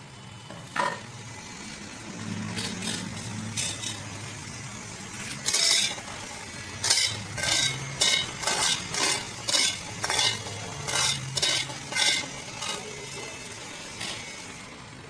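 A spatula scraping a steel pan as sliced ginger is stirred for sautéing. There is a single scrape about a second in, then a quick run of strokes about two a second through the middle.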